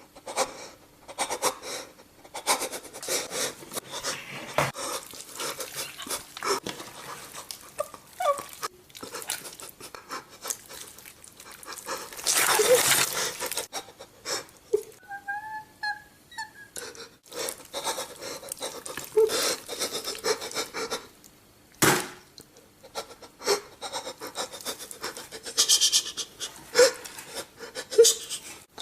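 A man's exaggerated crying sound effects: ragged panting and sobbing breaths, with a longer loud gasping burst about twelve seconds in and a brief high whimper just after.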